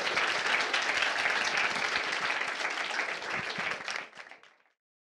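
Audience applauding, a dense patter of many hands clapping that fades out near the end.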